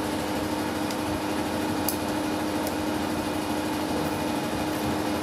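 Steady mechanical hum: a constant drone over a haze of running-machine noise, with a few faint ticks.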